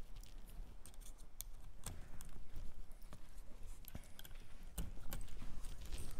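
Light scattered clicks and rustling from a small dog being fitted into a rear-wheel dog wheelchair: harness straps, buckles and the cart's frame being handled. A few sharper clicks stand out about two seconds in and near the end.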